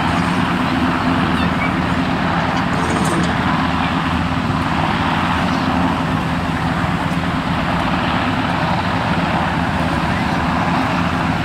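Sikorsky H-60-type military helicopter hovering low over the sea, a steady drone of rotor and turbine noise, mixed with a steady wash of breaking surf.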